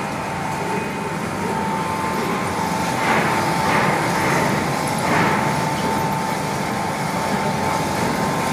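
Aluminum-plastic separating plant machinery running: steady machine noise with a constant high whine, and a few brief louder rushes about three and five seconds in.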